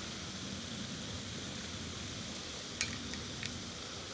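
Steady low background hiss with no distinct source, broken by a couple of faint short clicks about three seconds in.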